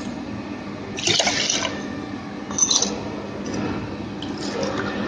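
Water poured from a steel tumbler into a clay pot holding soaked rice and moong dal, a steady trickling wash with two brief louder splashes about a second and two and a half seconds in.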